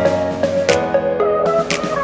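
Background music: a melody over a beat, with a sharp percussive hit about once a second.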